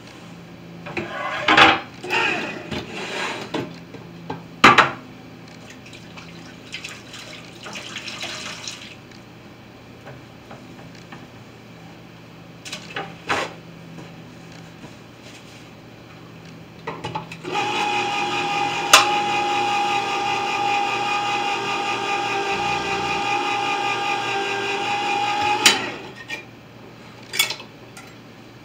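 Clattering and knocks as a can and utensils are handled, then an electric can opener runs with a steady whine for about eight seconds, cutting round the lid of a tin can, and cuts off sharply.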